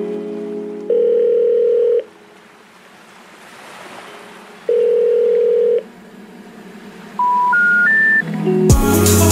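Telephone tones in the background music: two long ringing beeps a few seconds apart, then three short rising tones like the intercept signal for a disconnected number. A beat with bass and drums comes in near the end.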